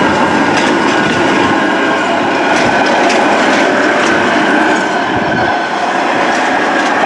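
London Underground Jubilee line tube train (1996 stock) running past at speed, its wheels clattering over rail joints with a steady high whine over the rumble.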